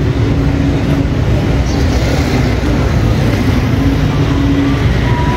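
Steady rumble of road traffic. A low hum comes and goes over it.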